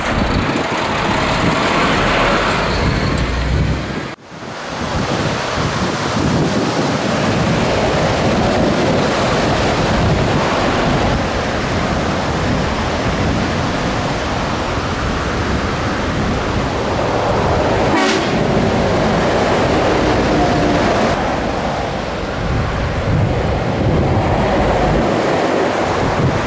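Scania truck on the move: a steady, loud rumble of engine and road noise, dropping out for a moment about four seconds in.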